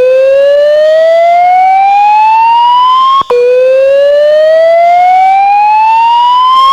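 Fire alarm voice-evacuation system sounding its evacuation tone during a test: two slow rising whoops, each climbing in pitch for about three seconds, then cutting off sharply as the next begins.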